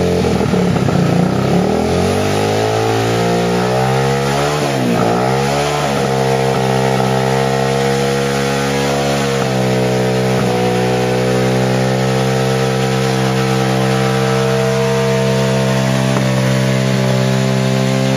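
Underbone motorcycle engine running, its speed rising and falling for the first six seconds with a quick blip of the throttle about five seconds in, then held steady, settling a little lower about nine and a half seconds in.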